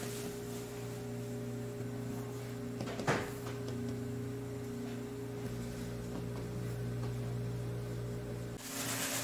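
Steady machine hum in a bakery workroom, with one sharp knock about three seconds in and a short hiss near the end.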